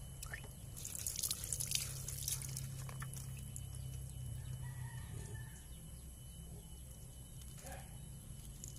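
A rooster crowing faintly, a drawn-out call about five seconds in. Before it, a second or so of scratchy scraping from a spoon working a small raw fish.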